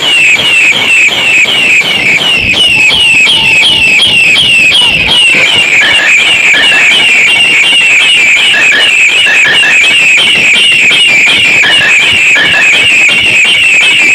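Loud warbling alarm-like tone, a rapid run of short falling high chirps repeating without a break, over crowd noise.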